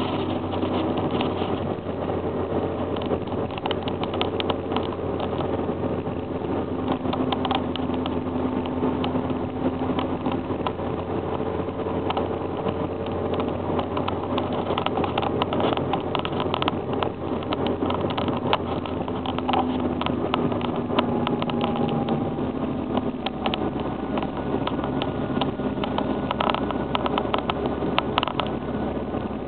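Toyota Corolla 1.6's four-cylinder petrol engine and road noise while driving at a steady pace, with many small ticks and rattles throughout. The engine note dips slightly a little past halfway, as the speed eases.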